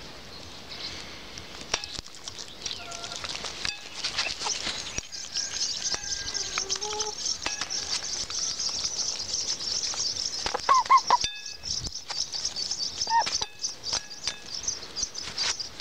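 Hens clucking while pecking earthworms off a ceramic plate, with sharp taps of beaks on the plate. A steady high chirring runs in the background from about five seconds in.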